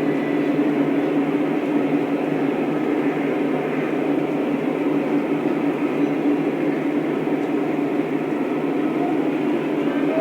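Lionel O-scale model train running along its track: a steady rolling rumble of wheels and motors with a held hum.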